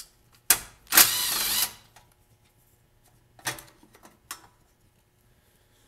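A cordless drill spinning a bolt out of a lawn mower engine's blower housing: a short burst of motor whine, wavering in pitch, about a second in. A couple of short knocks follow a few seconds later.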